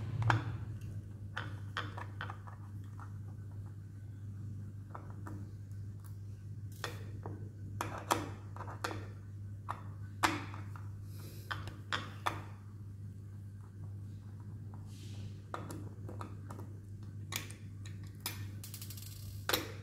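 A small precision screwdriver and fingers working on the metal parts of an opened hard disk drive, unscrewing the cable connector of the read/write head assembly: irregular light metallic clicks, ticks and taps over a steady low hum.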